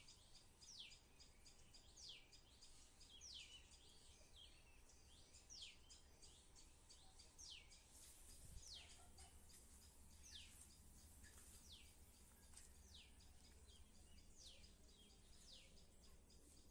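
Faint bird calls: a short high chirp sweeping downward, repeated about once a second, over near silence.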